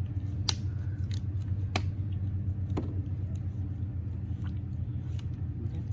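Steady low motor-like hum with a faint high whine above it, broken by a few sharp clicks in the first three seconds.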